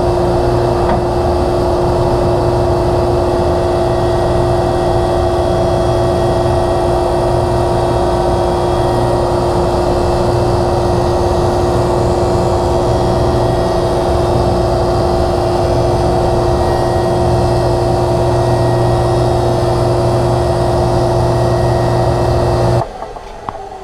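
Delta DJ-20 jointer running steadily while a board's edge is fed across its cutterhead in repeated passes to clean up a rough edge. The sound cuts off suddenly near the end.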